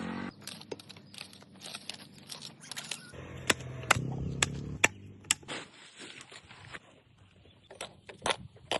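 Irregular sharp clicks, taps and scrapes, as of parts and tools being handled during a repair, with a low hum a few seconds in.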